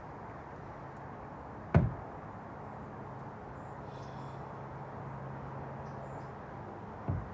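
Two dull thuds of a hand weight touching down on the floor during single-leg deadlift reps: a loud one about two seconds in and a softer one near the end.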